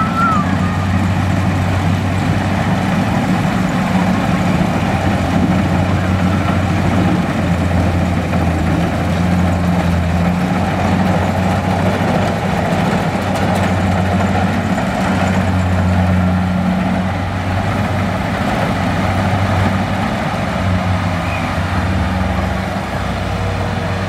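Kubota DC70 combine harvester's diesel engine running steadily under load as it cuts rice, a loud, even hum with little change in pitch.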